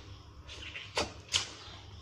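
Mouth sounds of a person eating chicken: soft chewing with a few sharp smacks, two of them about a second in.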